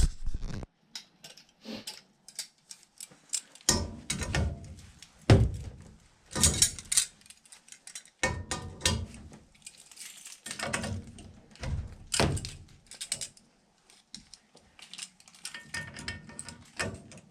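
Hand tools and metal parts being handled, a quick run of clicks, clinks and knocks with several heavier thunks, as a cap on the gas piping is worked on to check for water in the line.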